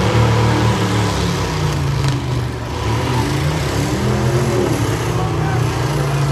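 Engines of demolition-derby trucks, vans and SUVs running hard and revving, the pitch repeatedly rising and falling as the drivers throttle up to ram each other.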